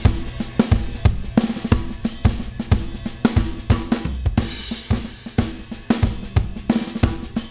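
Recorded drum kit playing a steady groove, with kick, snare, hi-hat and cymbals, and bass and guitar underneath. The drums run through a stereo FET limiter on the drum bus.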